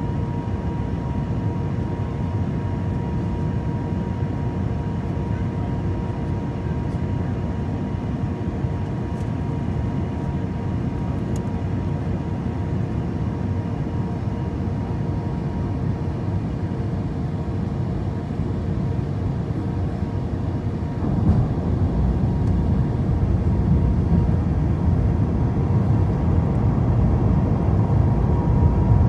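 Cabin noise of a jet airliner descending to land: a steady rush of airflow and engine noise with a faint steady hum and whine through it. It grows louder about two-thirds of the way through.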